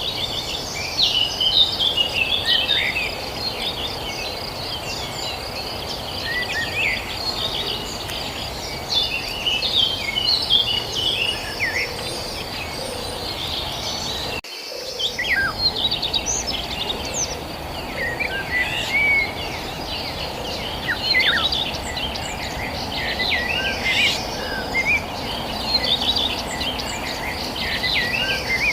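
Many small birds chirping and twittering in short, quick calls, over a steady high-pitched insect trill and a constant low background hiss. About halfway through there is a brief dropout.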